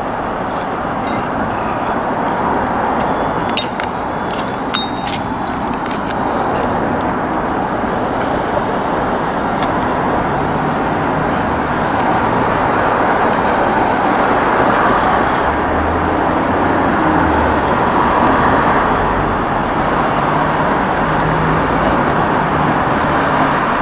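Steady street traffic noise from passing cars, with a few light clicks in the first few seconds.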